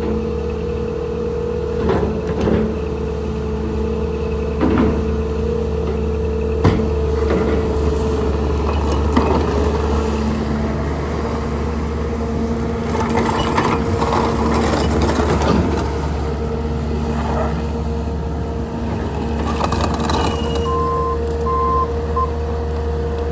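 Bobcat T650 skid steer loader's diesel engine running steadily, with a few sharp knocks from the machine. Its reverse alarm beeps near the end.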